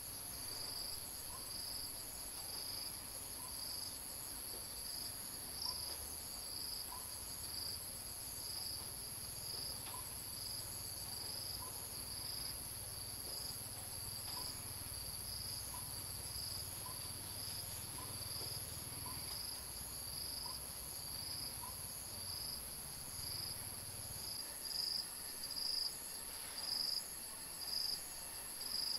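Insects calling: a steady high-pitched buzz with a pulsing chirp repeating a little more than once a second. Near the end a louder sound joins, repeating about once a second.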